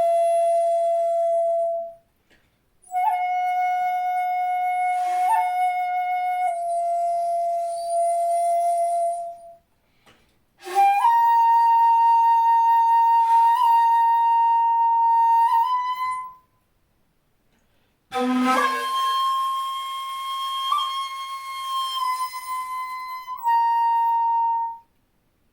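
Jinashi shakuhachi, a 2.0-shaku bamboo flute in C, playing four long held notes separated by short silent breaths, the pitch rising over the phrase, with small ornamental bends and breaks between held tones.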